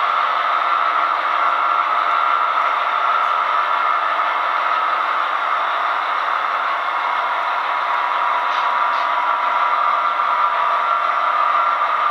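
Model train double-stack well cars rolling along the track: a steady whirring clatter of small metal wheels on the rails.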